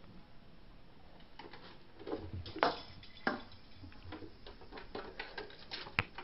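Kittens' claws and paws clicking and scrabbling on a board slide, with a few sharper knocks, the sharpest near the end.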